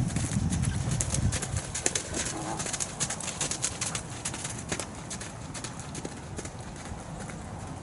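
Horse trotting on sand arena footing: a steady run of hoofbeats, loudest and deepest in the first second or so as it passes close, then growing fainter as it moves away.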